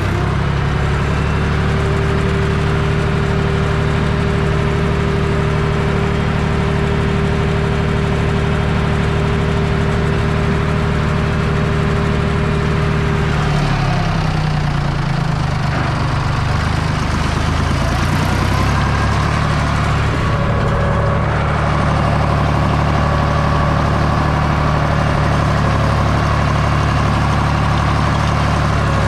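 Deutz 5206 tractor's air-cooled three-cylinder diesel engine running steadily under load, pulling a tine cultivator, heard from inside the cab. About halfway through the engine note wavers and dips briefly, then settles again, and a steady whine heard alongside it stops.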